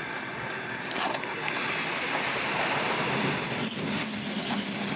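ED2T electric multiple unit pulling into the platform, its running noise growing louder as the front car draws level about three seconds in. From about two and a half seconds in a steady high squeal joins it.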